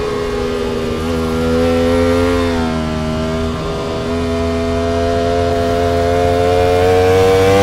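Ducati Panigale V4 R's V4 engine running under load with a steady note. The pitch dips briefly about three seconds in, then climbs slowly as the revs build.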